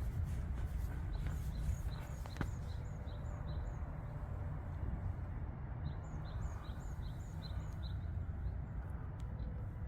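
A bird calling in two runs of short, high chirps, about three a second, the first about a second in and the second about six seconds in, over a steady low rumble.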